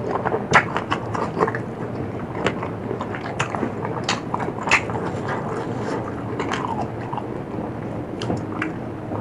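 A person biting and chewing crunchy food, with irregular sharp crunches scattered throughout.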